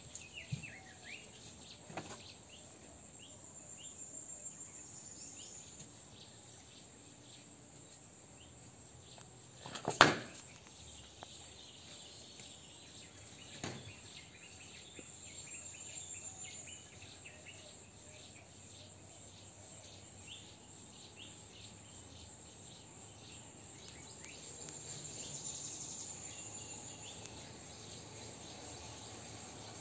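Insects trilling steadily and shrilly in the background, with one sharp loud knock about ten seconds in and a couple of lighter knocks: an upturned Indian star tortoise's shell rocking and striking the concrete as it rights itself.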